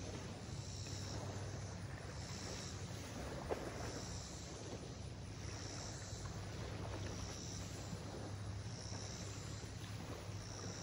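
Lakeshore ambience: a steady low hum with wind noise, an insect calling in short high-pitched pulses about once a second, and a single sharp tick about three and a half seconds in.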